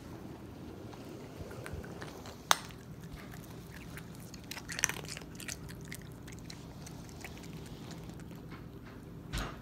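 Young raccoon chewing and crunching an ice cube, a run of small crackles and clicks with a sharp click about two and a half seconds in. A dull bump near the end.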